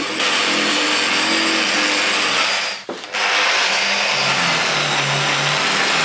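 Angle grinder with a buffing pad polishing the clear bean hopper of a coffee grinder: a steady motor whine under a loud rubbing hiss from the pad on the surface. It breaks off for a moment a little before halfway, then carries on.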